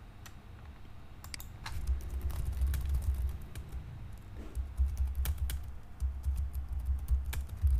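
Typing on a computer keyboard: irregular keystroke clicks in short runs, with a low rumble underneath from about two seconds in.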